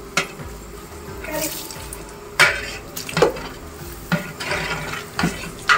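Water being poured into a cooking pot, with several sharp clinks and scrapes of metal utensils against the pot.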